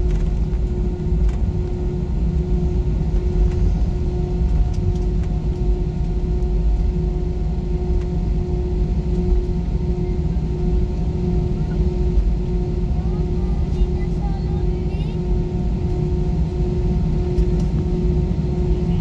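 Airbus A320 cabin noise while taxiing, heard from inside the cabin: a steady low rumble from the engines with a constant hum.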